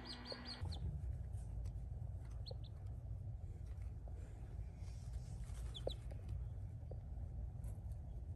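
Newly hatched Australorp chicks giving a few faint, short peeps, about two and a half and six seconds in, over a steady low hum.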